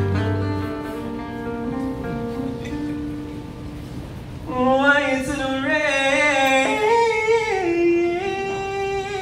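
Acoustic guitar playing a slow introduction; about halfway through, a voice comes in with a long wordless sung line that slides and steps between notes over the guitar.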